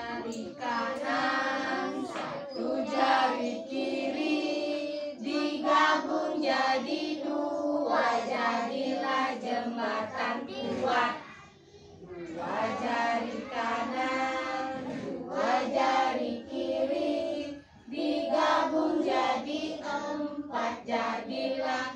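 A group of young children singing a song together, with short breaks about halfway through and again a few seconds later.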